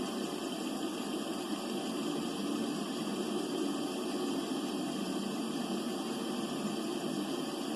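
Steady underwater background noise heard through a hydrophone: an even hiss with a stronger low rumbling band, and no distinct knocks.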